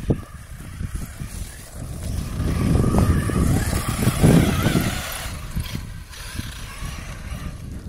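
Electric 1/8 RC truggy (Team Associated RC8T e with a Castle Mamba Monster Max and a 2200kv brushless motor) driving fast on dirt: motor and drivetrain whine with tyres hissing and scrabbling on loose soil, louder from about two seconds in as it passes close, then easing off. A low rumble runs underneath.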